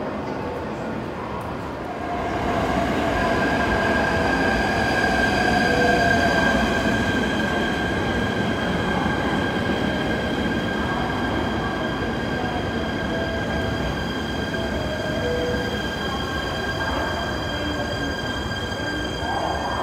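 JR East E129-series electric local train moving slowly alongside the platform. Steady high-pitched whine and squeal from its wheels and running gear rise in over the first couple of seconds and hold on a flat pitch.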